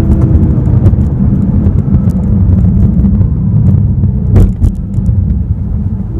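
The 2015 BMW M6 Gran Coupe's 4.4-litre twin-turbo V8 running while the car drives, a deep, dense rumble with the engine's tone fading after about a second. A brief sharp knock about four and a half seconds in.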